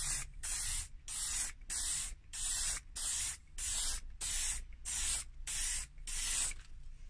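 Aerosol spray can of lacquer hissing in short bursts, about two a second, as the nozzle is pressed and released; the bursts stop about six and a half seconds in.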